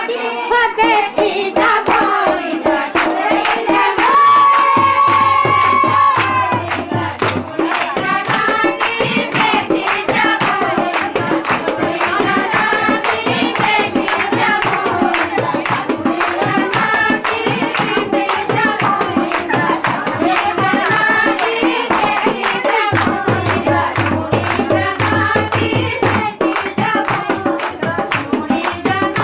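A person singing a song over a steady, fast drum beat, with a held sung note a few seconds in.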